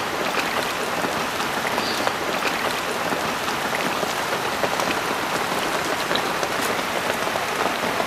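Steady rain falling on shallow standing water and wet grass: an even hiss with scattered ticks of single drops.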